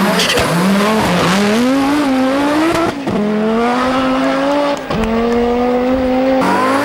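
Audi Sport Quattro S1 Group B rally car's turbocharged inline five-cylinder engine accelerating hard, its pitch climbing and dropping at two upshifts, about three and five seconds in.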